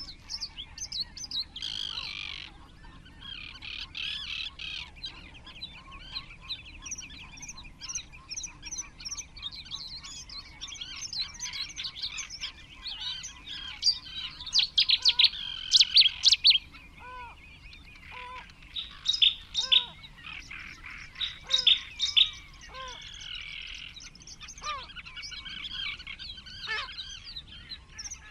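Spring birdsong chorus: several small wild birds singing over one another. A run of loud, sharp repeated calls comes about halfway through and again a few seconds later, with short, lower falling whistled notes scattered through the second half.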